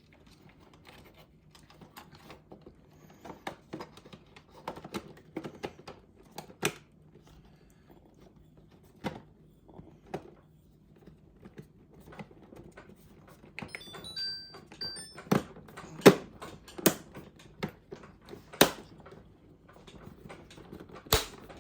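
Scattered clicks and knocks of plastic parts being handled at a refrigerator's ice and water dispenser, with a few louder sharp knocks in the second half. A short run of electronic beeps comes a little past the middle, over a faint low steady hum.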